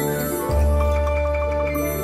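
Instrumental children's song music: a bright mallet-percussion melody over sustained chords and a low bass line, with a new bass note about half a second in.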